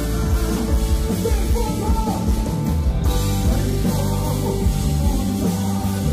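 Gospel worship music performed by a full rock-style band with heavy bass and a voice singing over it.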